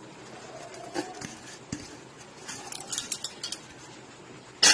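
Light clinks and taps against a stainless steel mixing bowl as ingredients are handled in it, with a louder clatter near the end.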